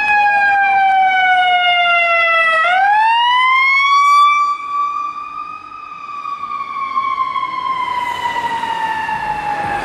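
Ambulance siren on a slow wail. It falls, sweeps sharply up about two and a half seconds in, then falls slowly again. It is loud as the ambulance passes close, then drops away after about four and a half seconds as it drives off.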